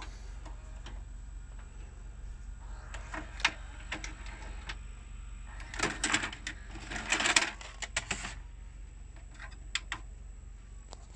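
NEC VH-605 VHS video cassette recorder ejecting a tape: a few clicks, then about two seconds of clattering and whirring from the loading mechanism as the cassette is unloaded and pushed out of the slot, then a few more clicks as the cassette is taken out and the flap shuts. A steady low hum runs underneath.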